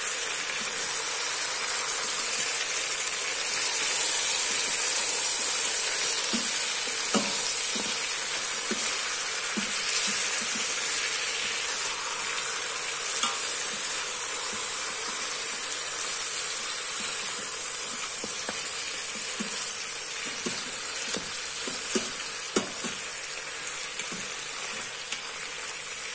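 Spiced chicken pieces sizzling in an Instant Pot's stainless steel inner pot while being stirred with a wooden spoon, a steady frying hiss with occasional light scrapes and knocks of the spoon against the pot.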